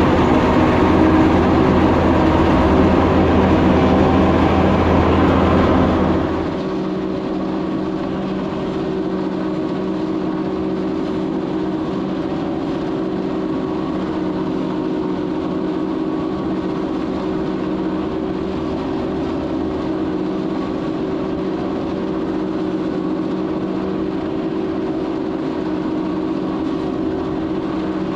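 Swaraj 969 tractor running steadily on PTO, driving a four-row maize silage cutter. About six seconds in the sound drops to a quieter, even hum with a few steady tones.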